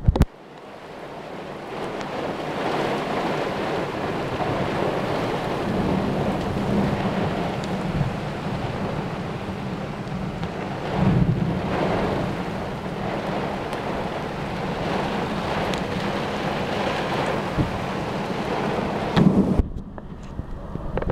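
Heavy thunderstorm downpour with gusting wind, heard from inside a car: a dense, steady rushing of rain that builds over the first couple of seconds and swells now and then, most strongly about halfway through.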